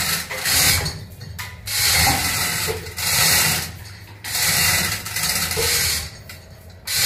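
Manual chain hoists being hauled by hand, their chains rattling through the blocks in about five bursts, each under a second, as an engine is lifted. A steady low hum runs underneath.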